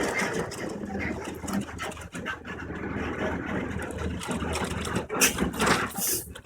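A delivery truck's engine running at low speed, a steady low hum with scattered knocks and clicks, and a couple of short bursts of hissing near the end.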